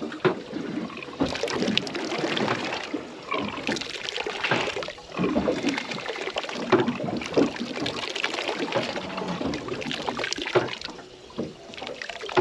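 Seawater lapping and sloshing against the side of a small boat's hull, in uneven swells of splashing.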